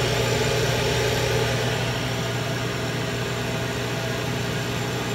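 Steady mechanical hum with a constant low drone from a CO2 laser engraver's fans and pumps, running on while the laser itself is idle after finishing a job.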